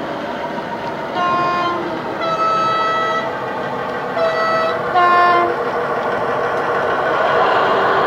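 Model railway DCC sound decoder playing a Class 29 diesel sound file through a model Class 22 locomotive's speaker: the engine runs while the two-tone horn sounds twice, each time two notes in turn. The engine sound grows louder near the end as the locomotive passes close by.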